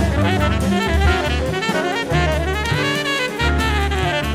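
Jazz background music: a saxophone melody over bass and a drum kit.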